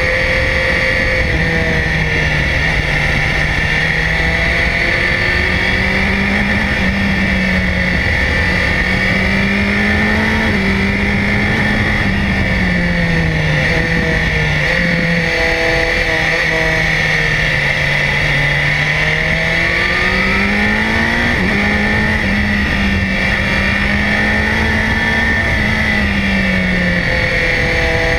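Onboard sound of a BMW S1000XR's inline-four engine under way on a winding road. The engine note rises and falls as the rider opens and closes the throttle through the bends, with a few abrupt steps in pitch, over a steady high hiss.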